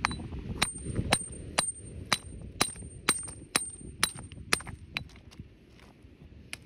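Steel geological hammer striking a hard beach cobble to split it: about ten sharp metallic clinks, two a second, each with a short high ring, then they stop; one fainter knock comes near the end.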